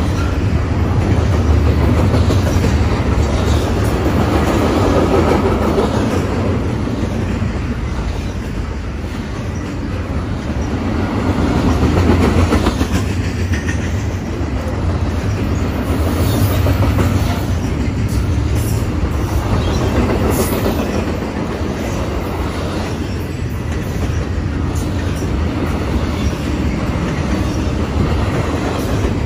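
Double-stack intermodal freight train's well cars rolling past: a continuous rumble of steel wheels on the rails, swelling and easing in loudness as the cars go by.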